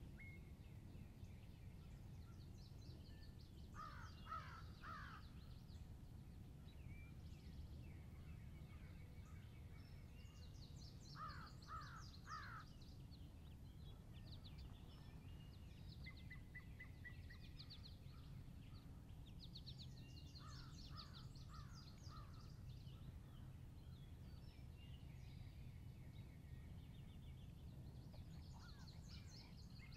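Faint woodland birdsong: songbirds chirping and trilling high up, while crows give short series of three or four caws three times, about 4, 11 and 21 seconds in, over a faint low outdoor rumble.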